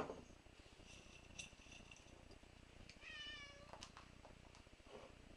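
A cat meows once, about three seconds in: a single high call, falling slightly. Around it, a sharp click right at the start and a few faint ticks.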